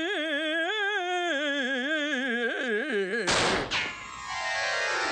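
A male voice holding one long sung note with wide vibrato, slowly sinking in pitch, cut off about three seconds in by a sharp pistol shot, with a falling tone after the bang.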